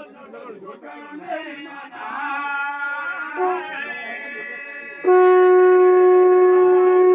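A blown horn sounding one long, loud, steady note that starts suddenly about five seconds in. Wavering, sliding tones come a couple of seconds before it.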